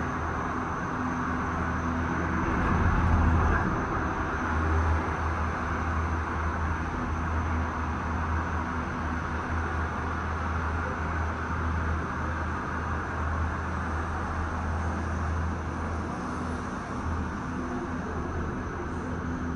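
Steady running noise inside a moving Disney Skyliner gondola cabin: a low hum under a rushing hiss, swelling briefly about three seconds in.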